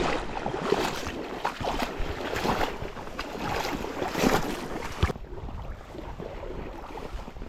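Wind buffeting the microphone over moving river water, with irregular brief rustles; about five seconds in it changes to a quieter, steady hiss.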